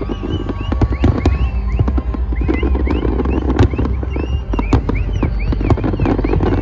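Fireworks display going off: a dense run of sharp bangs and crackles over a continuous low rumble, with short rising-and-falling whistling tones repeating in the middle.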